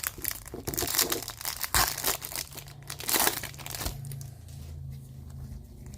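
A foil trading-card pack wrapper crinkling and tearing as it is ripped open, in several noisy bursts over the first four seconds. A steady low hum is left after that.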